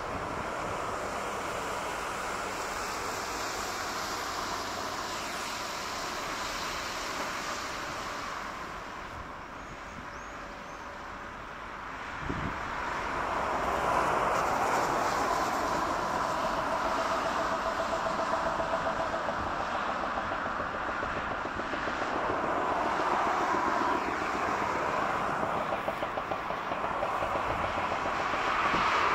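Jet aircraft engines running, a steady rushing noise. About twelve seconds in the sound changes abruptly and grows louder, and the jet noise carries on.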